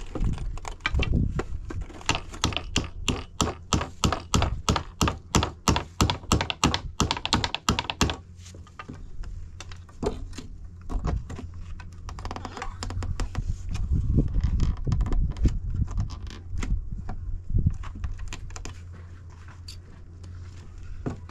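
Claw hammer striking nails into wooden boards: a quick run of light, rapid taps for the first several seconds, then slower, scattered knocks.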